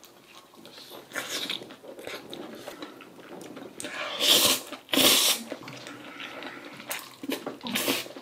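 A person eating instant jjajang ramyeon: chewing a mouthful, then loud slurps of the black-bean-sauce noodles about four and five seconds in, with more chewing and another slurp near the end.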